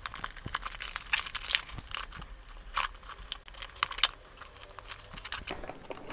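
Irregular crackling and tearing as a small blade cuts through the clear sticker seal on a cardboard earbud box, with rustling as the box is handled.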